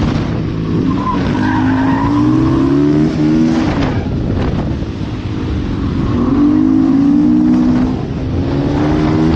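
Engine at hard throttle, climbing in pitch and dropping back at each gear change, with wind rushing over the microphone. A brief tyre squeal comes about a second in.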